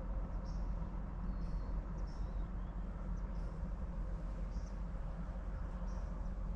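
Quiet woodland ambience: short, high chirps from small birds come every second or so over a steady low rumble.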